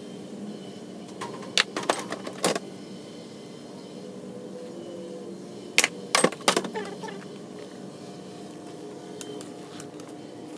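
Metal hand tools clinking and clacking against each other and the tool case in two short clusters of sharp clicks, one a couple of seconds in and one about six seconds in, over a steady low hum.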